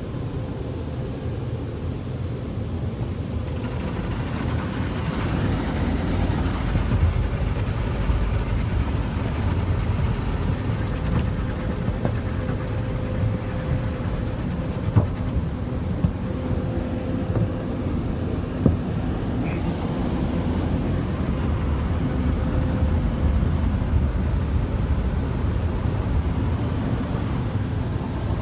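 Belanger tunnel car wash equipment working over a car, heard from inside the cabin: water spraying and cloth brushes washing against the body and glass over a steady rumbling hum of the machinery, getting louder a few seconds in. Three short sharp knocks come around the middle.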